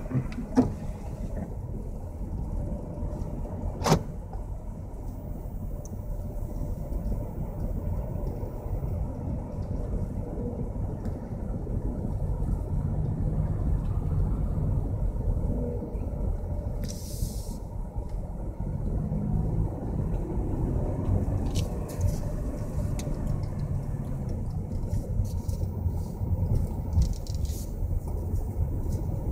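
Low, steady motor-vehicle rumble, with a sharp click about half a second in and another about four seconds in, and a brief high hiss past the midpoint.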